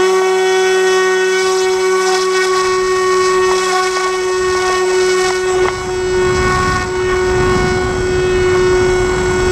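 Electric motor and propeller of a SkyWalker FPV plane running steadily in a climb, a loud whine held at one pitch. Wind noise on the onboard camera builds underneath from about six seconds in.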